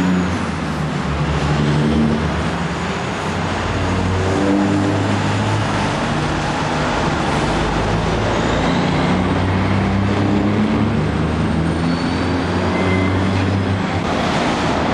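Busy road traffic: cars and semi-trailer trucks driving past, a steady mix of engine and tyre noise with heavier engine drones swelling and fading as vehicles pass.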